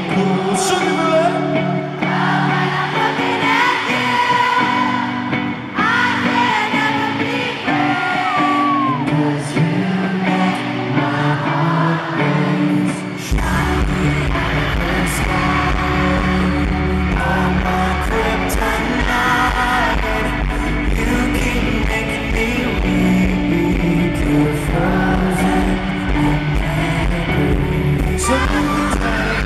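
Live pop band performing a song on stage, male lead vocals sung over the band. A heavy bass comes in about halfway through.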